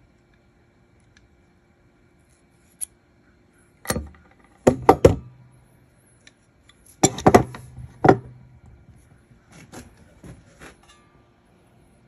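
Sharp clicks and snaps of small metal parts and tools being handled at the water heater's tubing and thermistor clip, in two quick clusters about four and seven seconds in, with softer clicks near the end, over a faint steady hum.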